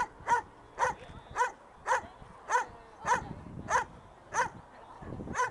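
A dog barking repeatedly in a steady, excited rhythm, about two sharp barks a second.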